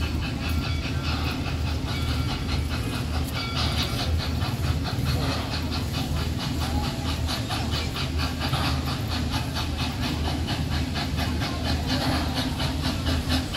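Propane-fired narrow-gauge 4-4-0 steam locomotive built by Crown Metal Products, coming slowly toward the station with a steady rumble and a hiss of steam.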